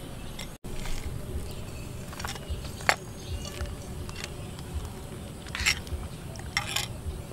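A metal spoon stirring a bowl of soup, clicking and scraping against the bowl a few times, the sharpest click about three seconds in, over a steady low rumble.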